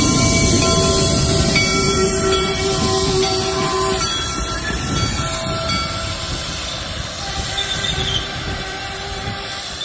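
Replica Union Pacific No. 119 4-4-0 steam locomotive running past and pulling away, its wheels and running gear rumbling on jointed rail. Its steam whistle sounds a steady chord of several notes until about four seconds in, and the whole sound slowly fades as the engine moves off.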